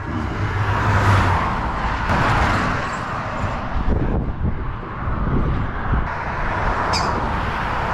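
Road traffic going by on a highway: a steady wash of tyre and engine noise that swells and fades as vehicles pass, over a low rumble. A brief high sound comes near the end.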